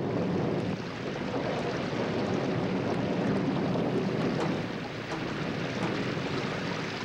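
Steady rushing of creek water flowing over rocks.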